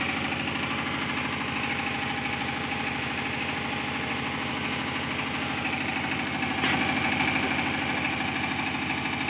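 Kubota diesel generator engine running steadily at constant speed, with a short click about two-thirds of the way through.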